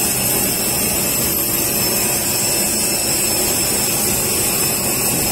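Jet aircraft engines running, a loud, unbroken noise with a few even high-pitched whines on top.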